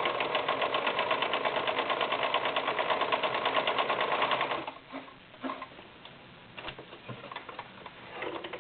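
Mid-1980s Brother VX 857 domestic sewing machine stitching a zigzag at a steady speed, a fast even clatter of needle strokes, stopping about four and a half seconds in. A few light clicks follow.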